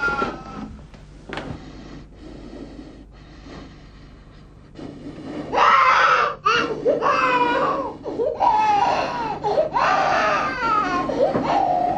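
A baby crying: weaker wails at first, then loud, sustained wailing from about halfway through.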